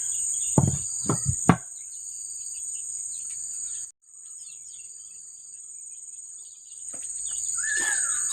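Steady, high-pitched drone of insects, like crickets or cicadas. A few sharp knocks come in the first second and a half, and the drone cuts out for a moment about halfway through before returning.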